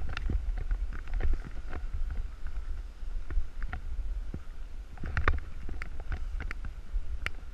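Snowboard sliding and scraping over chopped-up snow, with wind rumbling on the GoPro's microphone and scattered sharp clicks and scrapes from the board, in a cluster about five seconds in.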